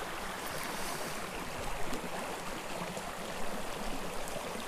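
Small mountain creek running over rocks and shallow riffles: a steady rush of flowing water.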